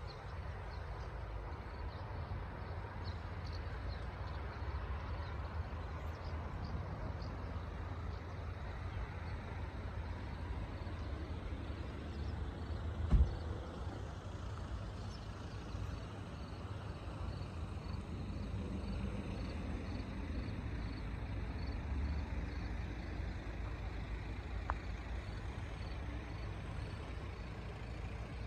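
Outdoor ambience: a steady low rumble, with faint high chirps repeating evenly through the second half and a single sharp thump about halfway through.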